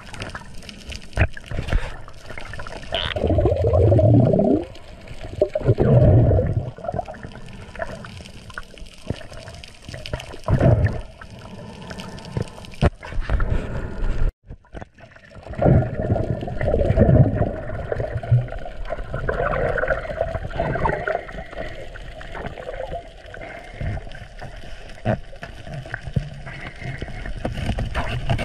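Underwater bubbling and gurgling of water, rising in repeated bursts of a second or so over a steady watery noise. There is a brief dropout about halfway through.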